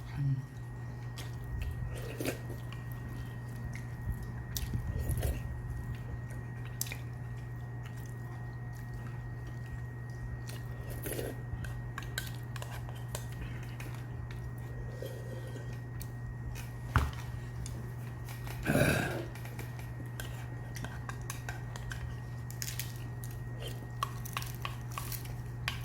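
A metal spoon clinking and scraping in an earthenware ttukbaegi bowl, with chewing, under a steady low hum. There is a sharp knock about two-thirds of the way through and a brief louder noise just after.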